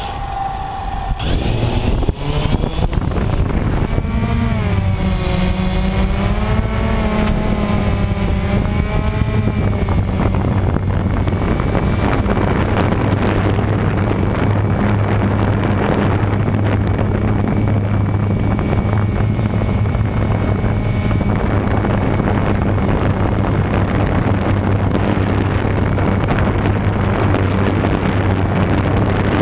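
Camera drone's electric motors and propellers spinning up about a second in and lifting off, their pitch wavering up and down during the climb, then settling into a steady loud buzzing hum in flight, heard from the drone's own onboard camera.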